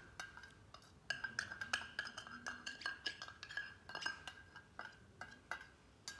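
Steel spoon clinking again and again against the inside of a small stainless-steel bowl, stirring sugar into milk. The taps come a few a second from about a second in, each ringing briefly at the same bright pitch.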